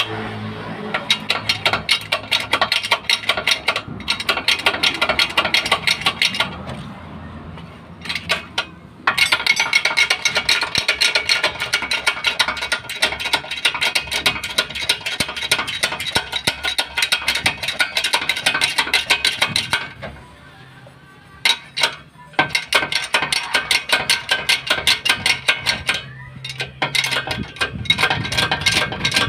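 Hydraulic bottle jack being pumped by hand under a truck's frame, a rapid metallic clicking and clinking from the pump handle and its socket, with a few short pauses. The jack is raising the vehicle so the leaf spring can be worked on.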